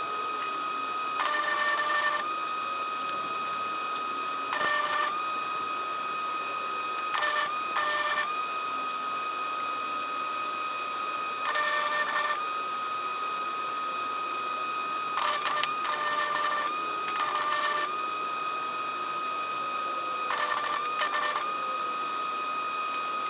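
Short bursts of arc-welding crackle, about ten of them, each lasting from a fraction of a second to about a second, as steel cattle panels are tack-welded. A steady high whine runs underneath.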